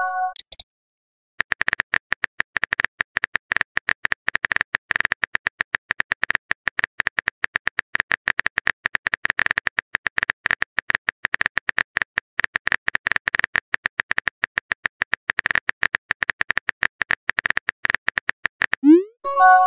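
Rapid, irregular phone-keyboard tap clicks as a long text message is typed letter by letter. Near the end comes a short rising swoop with a brief chime as the message is sent.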